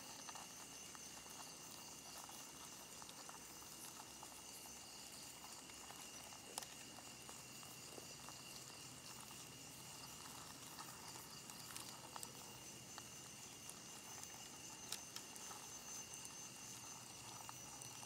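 Faint chorus of night insects: a steady high trill all the way through, joined by a second, higher trill that drops out for a while in the middle and returns, with a few small clicks.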